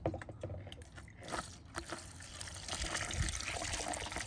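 Motor oil pouring from a plastic jug into a funnel in a lawn mower engine's oil fill tube, refilling the crankcase. A few clicks at first, then the pour starts about a second in and runs steadily.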